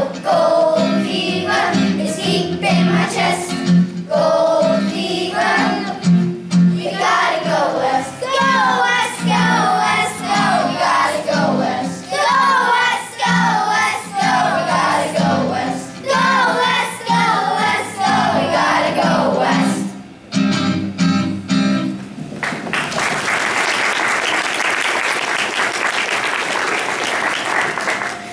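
A children's choir sings a song over instrumental accompaniment, which ends about twenty seconds in. Then the audience applauds steadily.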